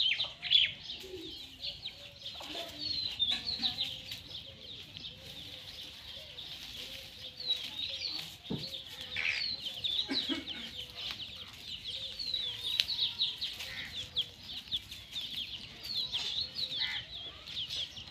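Chickens clucking softly in a series of low, evenly spaced notes, under a steady chatter of rapid, high-pitched chirps.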